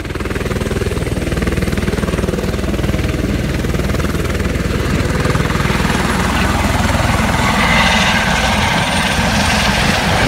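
Tour helicopter flying low and close, its turbine engine and rotor making a loud, steady noise with a fast pulsing beat of the rotor blades.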